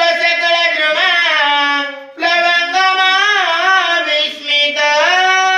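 A man singing a Marathi devotional verse (ovi) in a slow melody, holding long ornamented notes, with a short pause for breath about two seconds in.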